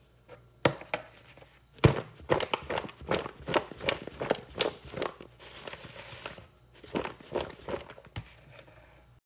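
Seasoned beef steak pieces being mixed in a bowl with a wooden spoon: a couple of separate knocks, then from about two seconds in a quick, irregular run of spoon knocks and scrapes against the bowl that stops shortly before the end.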